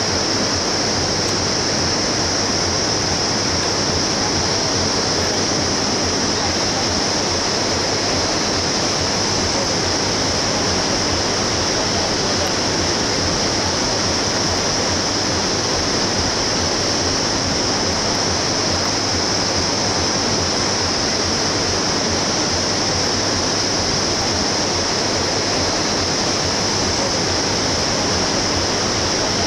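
Whitewater rapids of the Bhote Koshi river rushing through the gorge below, a steady roar with a constant high hiss on top.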